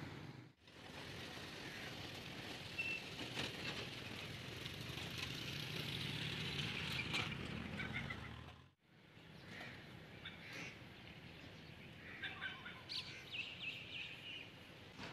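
Outdoor street ambience: a steady background rumble and hiss with small birds chirping, the chirps clearest in the last few seconds. The sound drops out sharply twice, just after the start and about nine seconds in.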